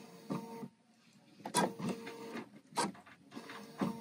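BERNINA sewing machine stitching in three short runs, each a brief motor whine with sharp needle knocks, stopping between runs.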